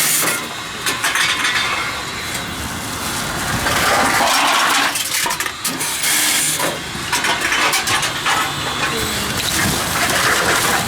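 Tomra T-63 reverse vending machine running as aluminum cans are fed in, the cans clattering through and being crushed.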